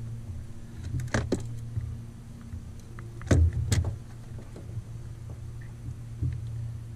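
A few sharp knocks and clicks of gear being handled in a small fishing boat while a blue catfish is unhooked, the loudest pair about three and a half seconds in, over a steady low hum.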